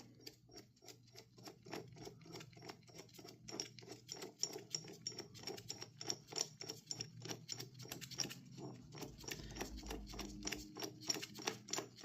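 Steady rapid clicking, about four clicks a second, from a motorcycle chain breaker tool being wound in by hand to push the pin out of a 530 chain link.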